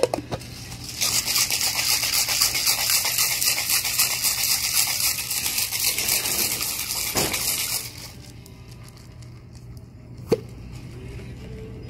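Ice cubes rattling hard and fast in a cocktail shaker for about seven seconds, then stopping. A single sharp knock follows about ten seconds in.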